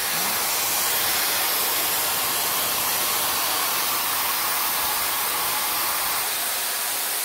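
Webeauty 5-in-1 hair styler's high-speed motor blowing air through its auto-wrap curling barrel while a lock of hair is wound on it: a steady airy hiss.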